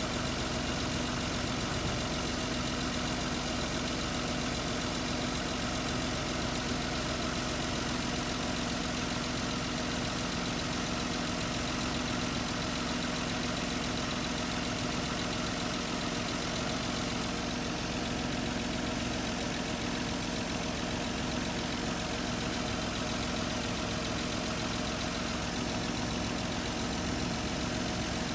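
Infiniti I30's 3.0-litre V6 idling steadily and evenly, with its misfire cured by replacing one ignition coil.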